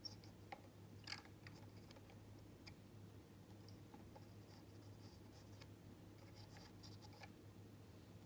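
Faint clicks and scrapes of small hand tools and component leads being handled while a replacement capacitor is fitted to a circuit board, the sharpest click about a second in, over a steady low hum.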